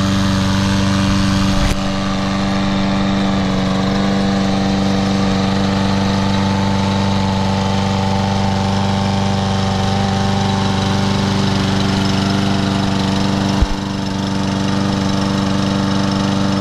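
Briggs & Stratton 550EX 140cc single-cylinder engine on a Troy-Bilt TB110 push mower running at a steady speed, with two brief knocks, one about two seconds in and one near the end. The mower shakes from rope wrapped around the blade adapter.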